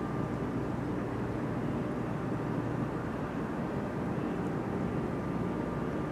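Steady low outdoor rumble with a light hiss, even throughout with no distinct events.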